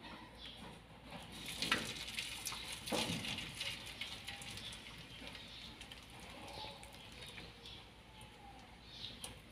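Battered corn kernels spooned into hot oil in a metal wok, crackling and spattering as the batter fries. A few sharper pops stand out between about one and a half and three and a half seconds in, then the frying settles to a lighter crackle.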